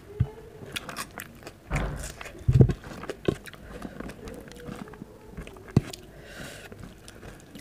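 Close-miked eating sounds: chewing with wet mouth clicks, and fingers squishing rice and moong dal together on a plate, with a couple of louder knocks about two to three seconds in.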